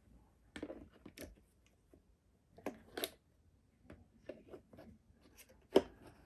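Irregular clicks, knocks and rubbing of hard plastic as the Deerma vacuum cleaner's dust box is handled, about a dozen small knocks with the loudest one near the end.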